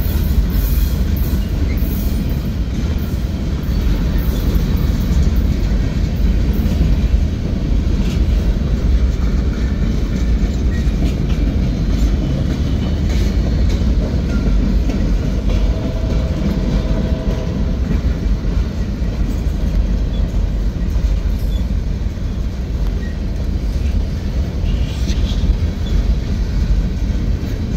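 Freight train cars, covered hoppers and boxcars, rolling past close by: a loud, steady rumble of steel wheels on the rails with scattered clicks.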